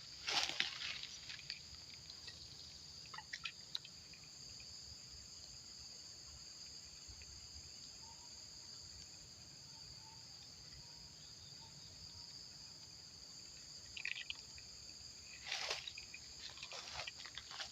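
Steady high-pitched insect chorus, a continuous shrill chirring in two high bands. A few brief rustling clicks come near the start, about three seconds in, and again near the end.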